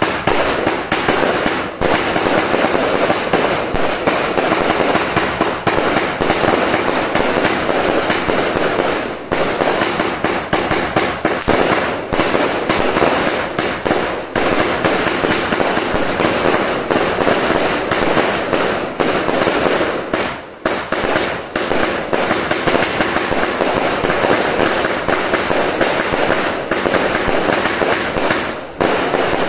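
A Funke 'Sulphur Crown' 100-shot firework cake firing: a loud, dense, nearly unbroken run of sharp launch reports and aerial bursts, with a few brief dips.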